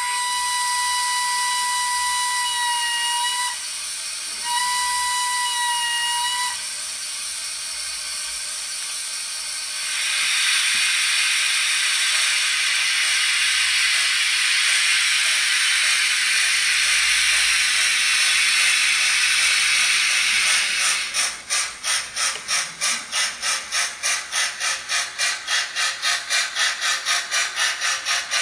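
Steam locomotive sound from a model FS 685 steam engine. There are two whistle blasts, a longer one and then a shorter one, each dropping slightly in pitch as it ends, over a steady steam hiss that grows louder about a third of the way in. About three-quarters of the way through, rhythmic chuffing starts at roughly three beats a second as the locomotive gets moving.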